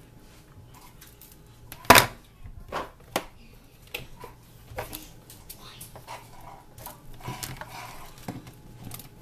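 Scattered knocks and clicks of hands handling a wooden-framed digital picture frame and its power cord on a cardboard box. The loudest knock comes about two seconds in, followed by a few lighter ones and some rustling near the end.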